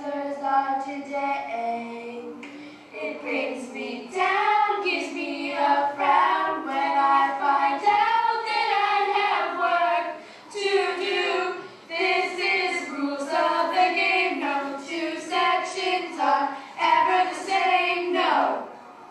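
A group of children singing together without clear instrumental backing, holding long notes.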